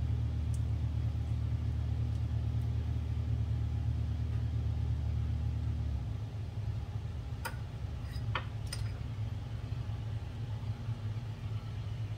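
A steady low mechanical hum that shifts to a rougher, weaker hum about halfway through. Near the middle, a metal spoon clinks a few times against a small container as it scoops.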